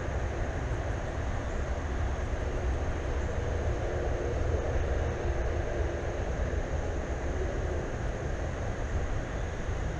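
Steady outdoor background rumble, heaviest in the deep low end, with a faint steady high-pitched hum above it.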